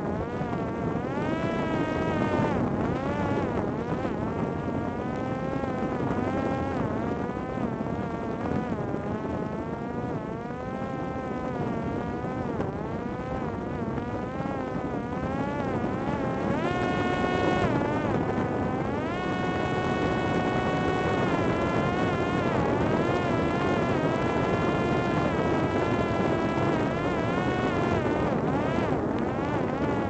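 Parrot Disco flying-wing drone's electric motor and pusher propeller whining, the pitch rising and falling with the throttle and holding steady for a few seconds past the middle, over the rush of wind across the airframe.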